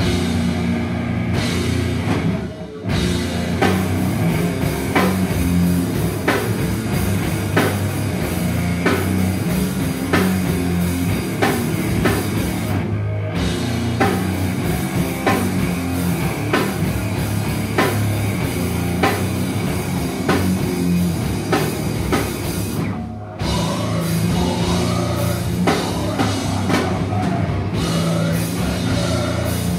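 Metal band playing live: distorted electric guitars and bass over a drum kit hitting steadily. The band stops for an instant about three seconds in and again about three-quarters of the way through.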